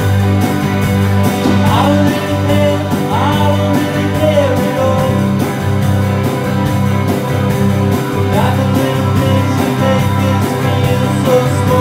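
A rock band playing live, an electric guitar and a bass guitar to a steady beat, with a voice singing at times.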